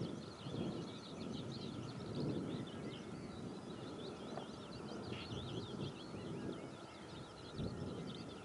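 Many small birds chirping and singing continuously over a low, unsteady rumble of distant noise.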